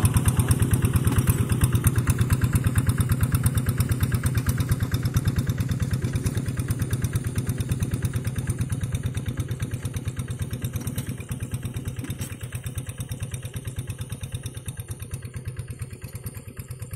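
Single-cylinder Yanmar diesel engine of a Quick two-wheel hand tractor chugging steadily under plowing load in a wet rice paddy, growing steadily fainter as it moves away.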